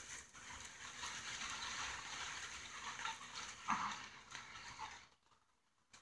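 A cluster of honeybees buzzing at the entrance of a new hive box as the swarm moves in: a steady buzz that drops away about five seconds in.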